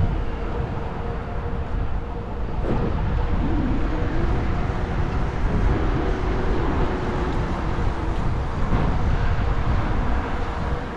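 Street traffic heard from a moving bicycle, with wind rumbling on the microphone and a steady vehicle hum running underneath.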